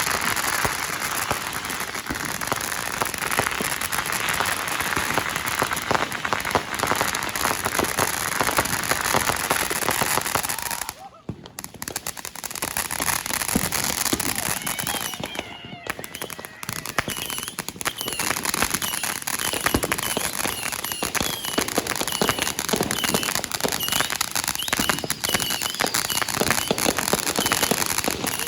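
Many fireworks and firecrackers going off in a dense, continuous stream of pops and bangs, with a brief lull about eleven seconds in. Over the second half a faint high chirp repeats at a steady pace.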